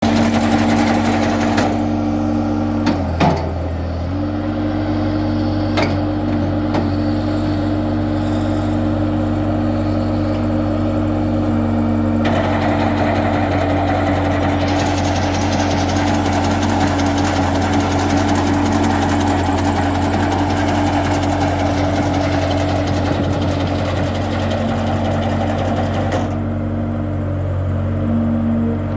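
A skid steer compact loader's engine running steadily, with a brief dip in engine speed about three seconds in. A rushing noise joins it from the middle to near the end.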